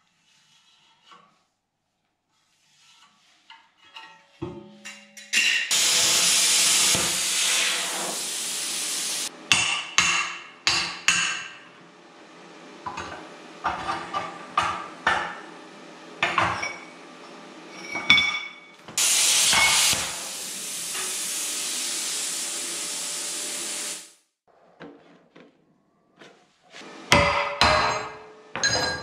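Hand-held plasma cutter cutting steel channel: two long steady hisses of a few seconds each, about five seconds in and again at about nineteen seconds, each starting and stopping abruptly. Short metallic clinks and knocks between the cuts, and a quick run of hammer-like metal knocks near the end.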